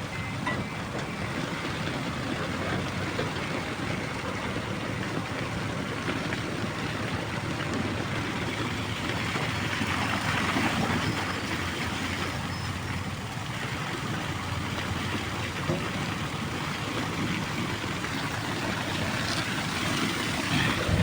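Diesel engine of a heavy machine, likely the JCB backhoe loader, running steadily.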